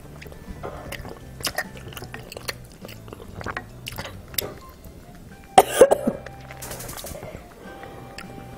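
A child eating rice-cake soup with a wooden spoon: small clicks of chewing and spoon, then a loud cough a little past halfway as food goes down the wrong way.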